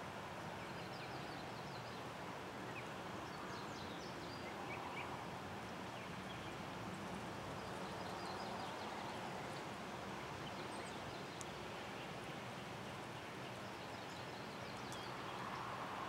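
Steady outdoor water noise, like a creek trickling over rocks, with faint bird chirps now and then.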